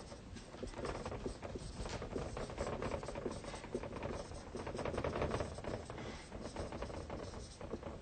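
Dry-erase marker writing on a whiteboard: a dense run of short, quick strokes as words are written out.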